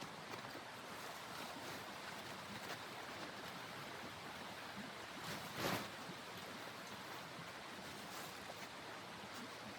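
Steady rushing of wind, with one brief louder swish a little past halfway.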